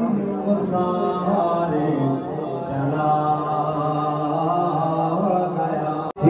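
A man's voice chanting a slow, melodic devotional recitation in long held notes. It breaks off abruptly near the end.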